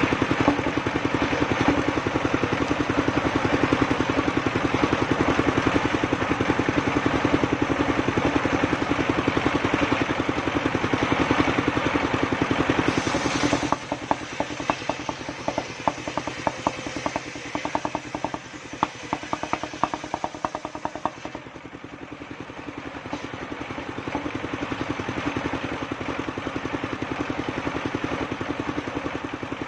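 Engine of a homemade circular sawmill running with a steady pulsing beat. About halfway through it drops quieter, with a quick run of light ticking for several seconds, then it builds back up toward the end.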